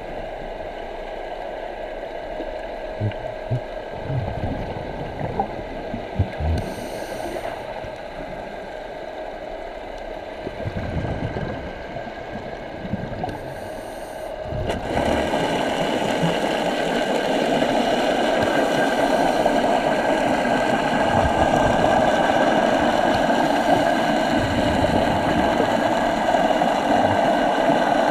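Underwater sound on a scuba dive: a boat motor heard through the water as a steady drone with several fixed tones, getting louder about halfway through. In the first half there are a few short hisses and scattered low bubbly pops.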